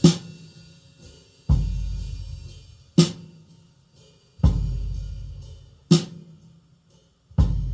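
Slow, heavy drum beat in a song's intro: a booming low drum hit with a long fading tail alternates with a sharp snare crack, one hit about every second and a half.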